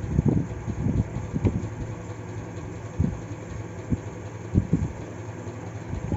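Scissors and satin fabric being handled at a sewing machine: a few soft, irregular low thumps over a steady low hum.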